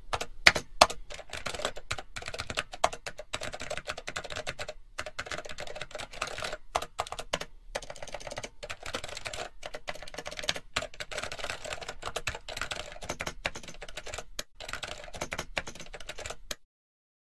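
Fast typing on a computer keyboard: a dense run of key clicks with a few brief pauses, stopping shortly before the end.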